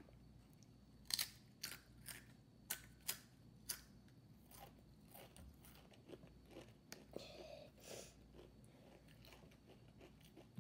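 A spicy Doritos tortilla chip being bitten and chewed: a quick run of sharp crunches over the first few seconds, then softer, scattered chewing crunches.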